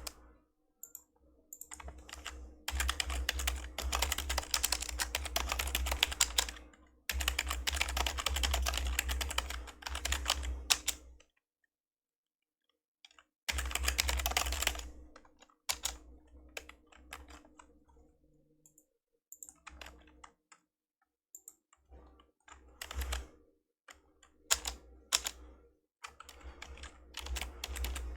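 Typing on an old membrane computer keyboard: fast runs of keystrokes, a pause of about two seconds, another quick burst, then slower scattered key presses.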